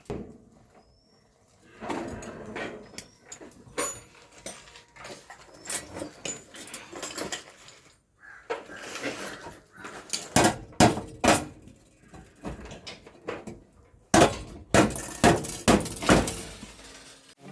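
Irregular knocks and clatter, coming in loud clusters about ten seconds and fifteen seconds in.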